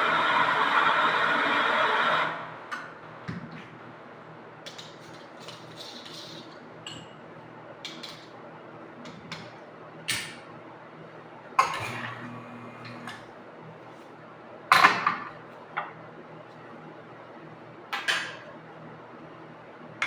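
Cups, jugs and utensils clinking and knocking now and then while coffee is made, with a few sharper strikes in the second half. It begins just after a loud steady noise cuts off about two seconds in.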